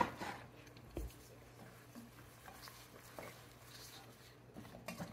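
Faint scrapes and soft knocks of a wooden spoon stirring sliced mushrooms in melted butter in a nonstick pot, over a low steady hum.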